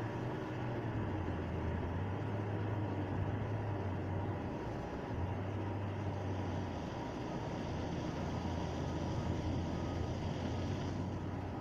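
An unseen heavy vehicle's engine running steadily with a low hum. Faint, evenly spaced reversing beeps begin near the end.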